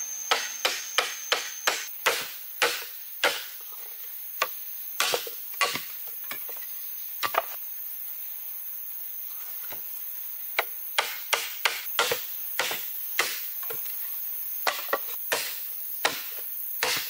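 A blade chopping into a green bamboo pole: sharp, woody knocks, a quick run of about eight strokes in the first three seconds, a few scattered ones, a pause of about three seconds, then strokes every half second to a second.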